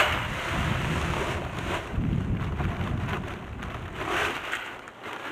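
Sand and gravel pouring from a bag into a cement mixer drum, a rushing hiss that swells and dies away near the end. A sharp knock comes right at the start.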